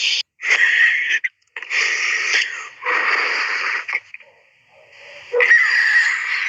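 Harsh, raspy animal calls: four in a row, each lasting about a second, with short gaps between them.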